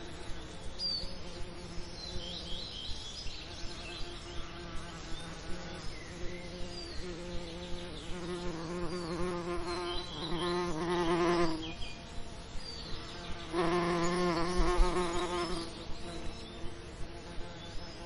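Bees buzzing, a wavering hum that swells loud twice, about ten seconds in and again about fourteen seconds in, as a bee passes close. Faint high chirps sound above it.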